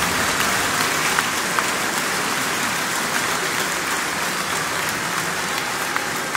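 Large crowd applauding steadily inside a church, the clapping easing off slightly toward the end.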